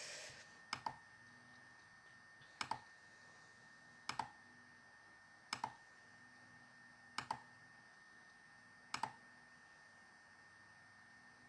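Computer mouse clicking: six short clicks about every one and a half to two seconds, each a quick double click, over a faint steady high whine.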